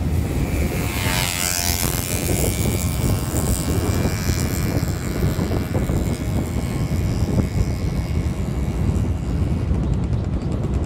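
Wind buffeting the microphone over the steady running of a vehicle engine while driving along a road, with a short rising and falling whine about a second in.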